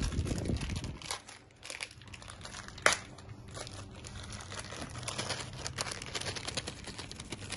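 Crinkling of a plastic parts bag and rustling cloth being handled, with a sharp click about three seconds in.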